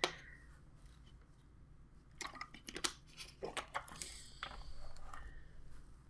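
Faint crinkles and clicks of a clear plastic cup being handled, in a few short clusters from about two seconds in, then a quieter, steadier rustle.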